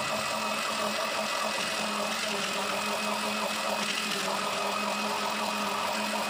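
Philips Turbo countertop blender's motor running steadily, blending guava into juice, with an even hum and a high whine.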